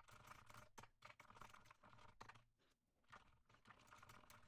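Faint typing on a computer keyboard: a run of irregular key clicks, with a short pause a little past the middle.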